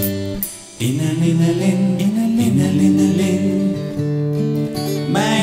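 Music from a children's song playing. It drops away briefly about half a second in, then picks up again with a moving melody over sustained notes.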